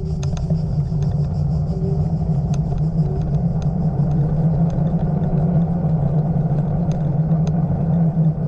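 Steady low rumble and hum of a small vehicle rolling along a paved lane, with scattered light clicks.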